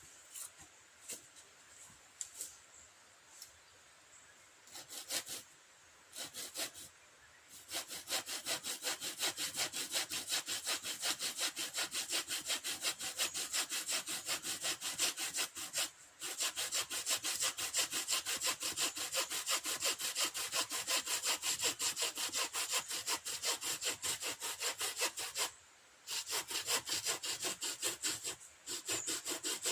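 Hand saw cutting through wood with fast, even back-and-forth strokes, about four or five a second. It starts after some scattered handling clicks and rustles, and stops briefly a few times.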